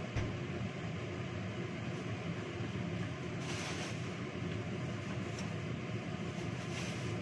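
A steady low machine hum fills the kitchen throughout. A little past three seconds in, a plastic bag rustles briefly.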